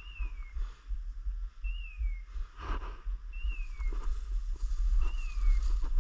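A hunting dog's beeper collar sounds a short falling electronic tone four times, evenly about every 1.7 seconds. Under it, footsteps crunch through dry leaves and twigs, over a low wind rumble.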